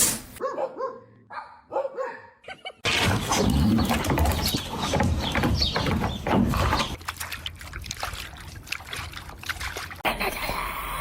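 A pet animal vocalizing, in short segments that change abruptly about half a second in, near three seconds and near ten seconds. The loudest part runs from about three to seven seconds.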